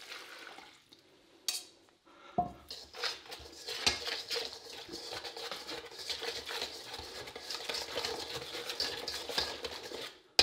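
A wire whisk beating thick batter fast and hard in a stainless steel mixing bowl, with a dense run of scraping and clicking against the steel. The whisking starts about two seconds in.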